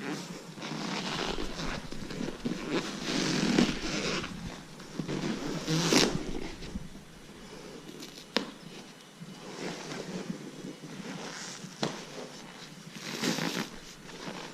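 Seat cover being pried and pulled off a motorcycle's metal seat pan: irregular scraping and crackling, with a few sharp clicks, the loudest about six seconds in.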